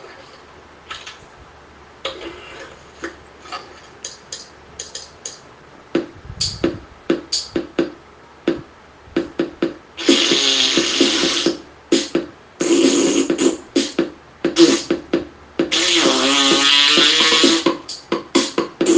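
Noisecore track: sparse short clicks and pops, then from about ten seconds in three bursts of harsh distorted noise with a wavering pitch.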